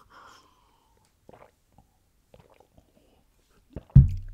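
A person sipping and swallowing water from a drinking glass close to the microphone: faint small gulps and mouth sounds. A loud low thump comes near the end.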